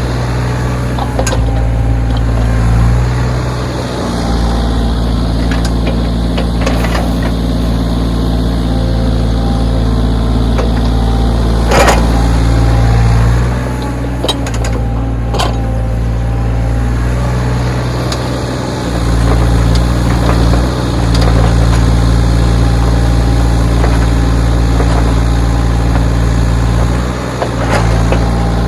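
Backhoe's diesel engine running steadily, its note dipping and changing several times as the machine works. There is a sharp knock about twelve seconds in, with a few lighter clicks around it.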